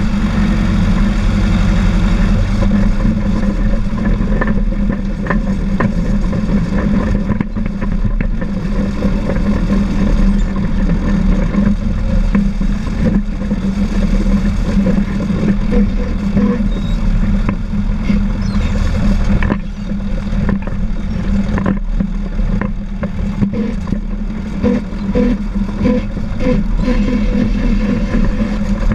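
Caterpillar D4 7U crawler dozer's four-cylinder diesel engine running steadily while pushing dirt, with clanking from the steel tracks and blade.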